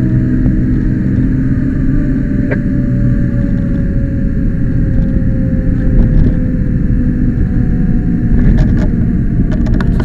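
Fire rescue truck running down the road, heard from inside the cab: a steady low engine and road rumble with a thin whine that slowly falls in pitch. A few short clicks near the end.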